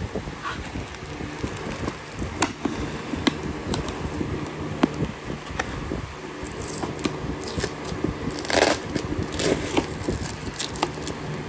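Cardboard box flaps being handled and plastic bubble wrap rustling and crinkling, with scattered sharp clicks; the rustling is busiest and loudest from about six and a half seconds in. A steady low rumble runs underneath.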